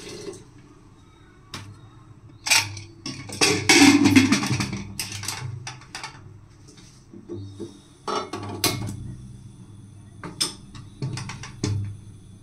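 Aluminium pressure cooker being closed: a series of metal clanks and scrapes as its lid is fitted and locked and the whistle weight set on, the loudest clatter about four seconds in.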